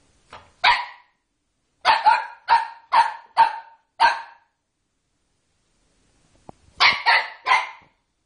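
A small dog barking in short, high-pitched yaps: one bark, then a quick run of about six, then three more near the end.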